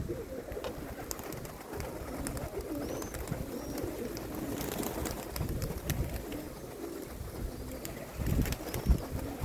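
Domestic pigeons cooing repeatedly, with low gusts of wind buffeting the microphone.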